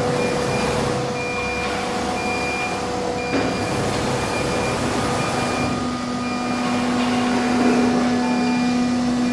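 Disc-type automatic-tool-change CNC router running with a steady mechanical hum and whine, a lower steady hum joining about halfway. A short high beep repeats about every 0.7 s.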